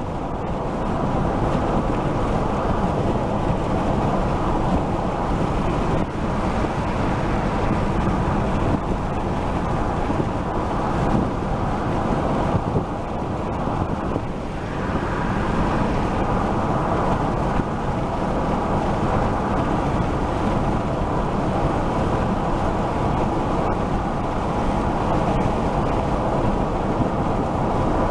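Steady road and wind noise from a car driving at highway speed, a continuous low rumble with no breaks.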